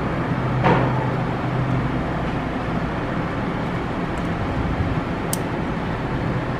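Steady low hum and hiss of background noise, with a brief rustle about a second in and a single sharp little click about five seconds in, as hands push plastic wiring connectors together.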